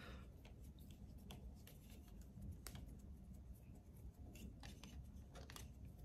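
Faint clicks and scrapes of a small Phillips screwdriver turning a tiny screw to hold a speaker in place, over near-silent room tone.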